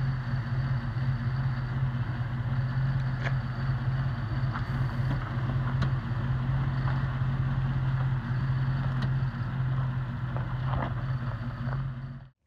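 A Jeep ZJ Grand Cherokee's V8 engine running steadily at a stand with a constant hum, a few faint clicks over it, cutting off abruptly just before the end.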